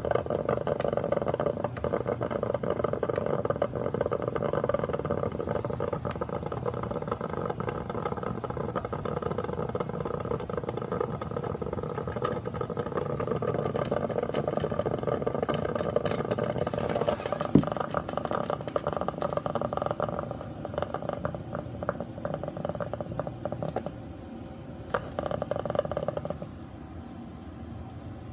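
Mr. Coffee BL5 4-cup drip coffee maker brewing: its heater gurgles and sputters with a dense crackle. The sound thins out and stops near the end, leaving a quieter steady noise, as the brew cycle finishes.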